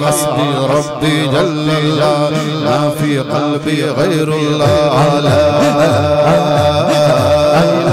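A man singing a hamd, an Urdu devotional song in praise of God, with a long, ornamented vocal line into a microphone, over a steady low drone. From about halfway, a low chanted pulse repeats roughly twice a second beneath the voice.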